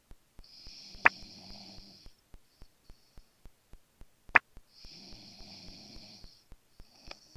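A person snoring: two long, rough snores about three seconds apart, and a third beginning near the end. A faint, even ticking runs under it about four times a second, and two sharp clicks, the loudest sounds, come about a second in and again midway.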